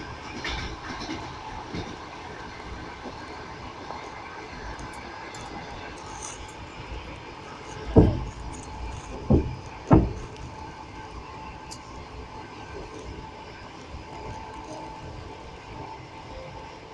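Passenger train running along the track, a steady rumble of the wheels on the rails, with three heavy thumps in quick succession about halfway through.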